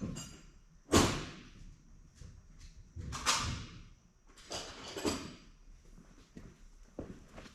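Hand tools and metal engine parts clanking and knocking during engine disassembly, several separate clanks with the loudest about a second in.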